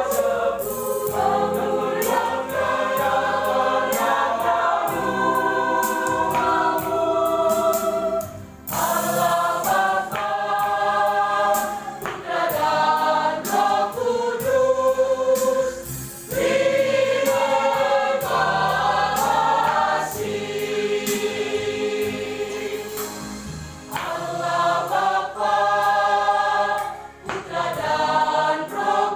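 Church youth choir singing a Christian song in several-part harmony, in long held phrases with brief breaks between them.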